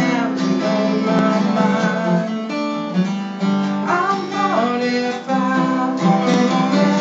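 Acoustic guitar playing a chord accompaniment, strummed and plucked in a steady pattern.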